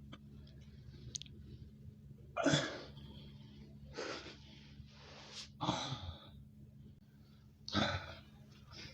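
A man breathing hard after a long set of push-ups: about five heavy, gasping breaths a second or so apart, spread irregularly over a few seconds.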